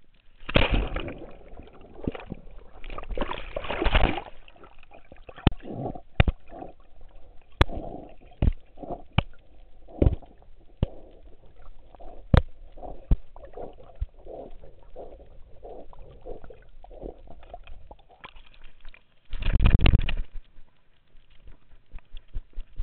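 Pool water splashing and sloshing around a camera strapped to a swimming dog, the camera going under the surface at times: heavy splashing at first, then a run of sloshes about twice a second as the dog paddles. A loud burst of splashing comes about 19 seconds in, and a quick patter of the dog's paws on the pool deck near the end.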